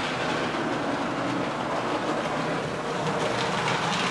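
ESU H0-scale Class 66 model locomotive running round the layout track with its sound functions off: a steady whir of its electric motor and the rattle of its wheels on the rails. It is running smoothly.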